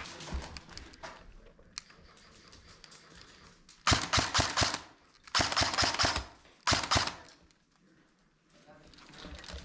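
Airsoft rifle firing three rapid automatic bursts about four seconds in, each a quick string of sharp clacks, the last one short. This is the shooter taking out an opposing player.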